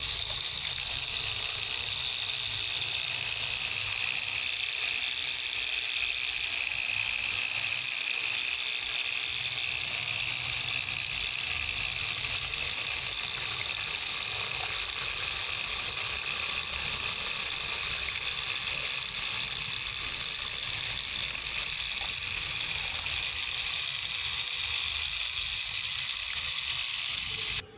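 Small DC motor of a homemade miniature walking tractor running steadily, driving the toy wheels through a rubber-band belt and gears, with a high, even whir.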